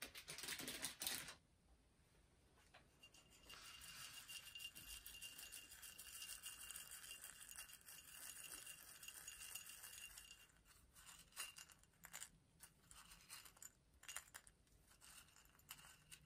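Faint handling sounds of a glass jar of mini marshmallows in nitrile-gloved hands: a brief rustle at the start, a long even scratchy rustle through the middle, then scattered light clicks and taps as fingers reach into the jar.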